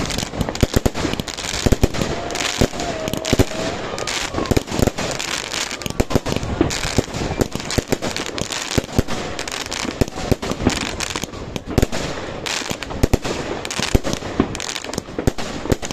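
Fireworks going off in a dense, continuous barrage of bangs and crackles, many overlapping shots every second.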